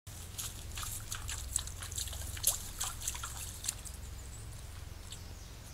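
White-tailed deer wading through a shallow creek, their hooves splashing in a run of irregular sloshes and drips that thin out after about four seconds, over a low steady hum.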